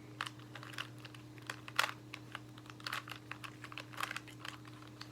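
Square-1 puzzle's plastic layers clicking and clacking as they are twisted and flipped during a solve, in quick irregular clicks with a few louder clacks.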